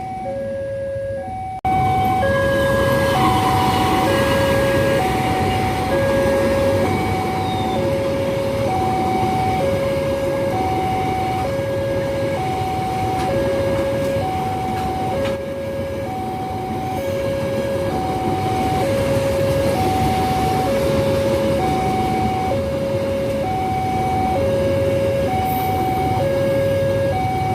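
Railway level-crossing warning alarm sounding a two-tone electronic hi-lo signal, switching between the tones about twice a second, over a steady low rumble. It gets suddenly louder about a second and a half in.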